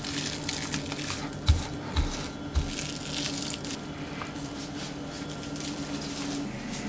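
Plastic cling film rustling and crinkling as hands handle a wrapped slab of cookie dough on a plastic cutting board, with a few soft knocks in the first few seconds. A steady low hum runs underneath and stops near the end.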